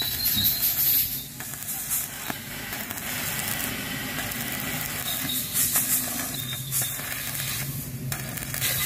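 Stick (shielded metal arc) welding a seam on a steel hull. The arc gives a steady hiss that drops out briefly a few times.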